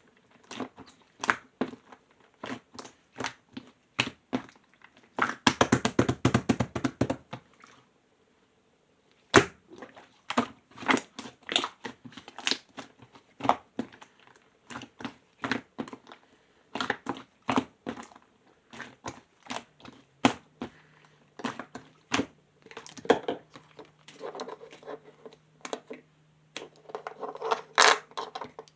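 Clear slime being squished and pressed by hand, giving irregular sticky pops and clicks, with a dense rapid run of them about five to seven seconds in.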